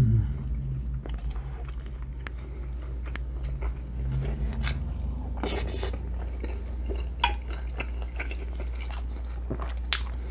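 Close-up chewing of a mouthful of pork and vegetable stew, with scattered clicks of cutlery against a dish and a steady low hum underneath.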